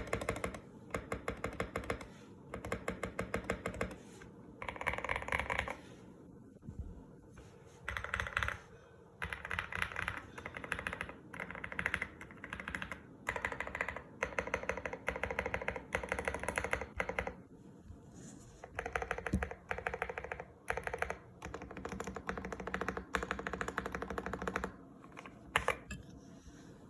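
Custom GMK67 mechanical keyboard with lubed KTT Kang White linear switches being typed on in fast bursts with short pauses, its PCB tape-modded and case dampened with cotton.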